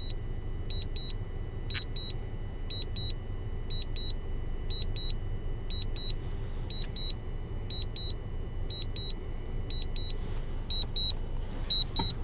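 Drone remote controller beeping in high double beeps about once a second: the alert it gives while the drone returns home on low battery. A steady low rumble runs underneath.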